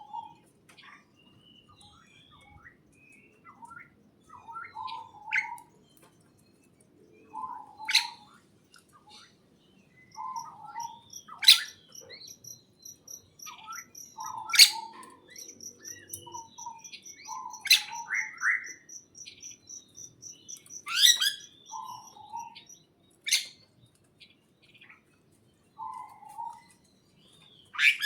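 Small birds chirping: loud, sharp single chirps every few seconds, softer low notes in between, and a fast high trill running through the middle.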